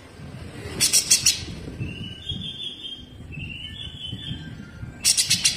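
Cucak jenggot (brown-cheeked bulbul) calling: two loud, fast, harsh rattling bursts ('besetan'), one about a second in and one near the end, with thin whistled notes between them.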